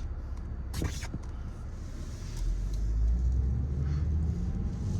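Car interior rumble while driving: steady low engine and road noise that grows louder about halfway through, with a brief sharp click or rustle about a second in.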